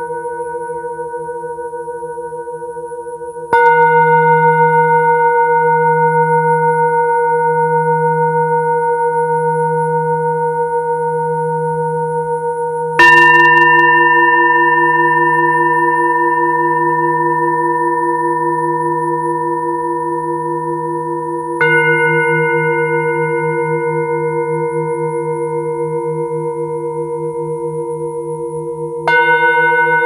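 Himalayan singing bowls struck one after another, four strikes roughly every eight seconds. Each strike rings on in several overlapping tones with a slow wavering beat, fading gradually while the next strike sounds over it. The loudest strike comes about a third of the way in.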